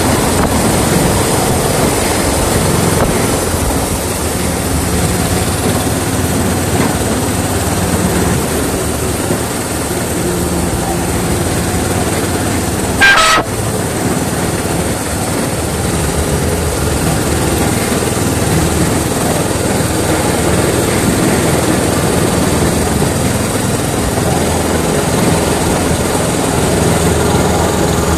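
Miniature railway train running steadily, heard from the cab, a continuous rumble. About halfway through comes one brief, loud, high-pitched sound.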